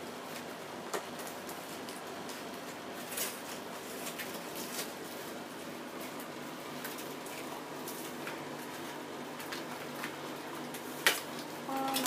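Faint scattered clicks and rustles of handling over a steady hiss, with a sharper knock near the end.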